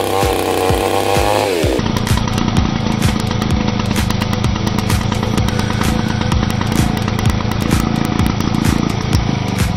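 Petrol chainsaw running at high revs, its pitch falling off about two seconds in, then running lower and steadier as it cuts through a watermelon.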